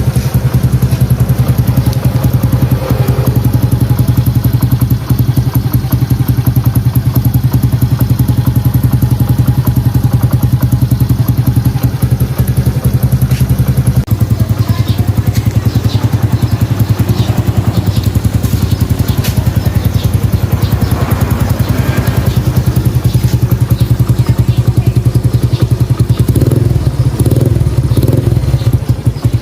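Kawasaki Fury 125's single-cylinder four-stroke engine running steadily through an Exos X6 aftermarket exhaust, with a fast, even exhaust pulse.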